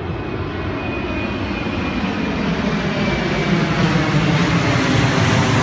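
Loud, even rushing noise with an engine-like drone, slowly growing louder.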